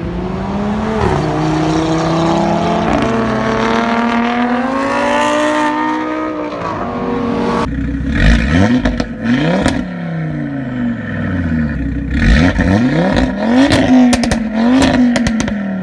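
Stage 2 tuned Audi RS3's turbocharged five-cylinder engine through a Milltek exhaust. It first accelerates with its pitch climbing over several seconds. Then, standing still, it is revved hard in a string of quick blips that rise and fall sharply, with sharp cracks from the exhaust among them.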